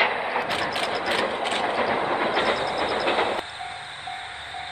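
Train running along the track, a steady rumble with clicks from the rails, cut off suddenly about three and a half seconds in. After that a faint high tone repeats evenly, about twice a second.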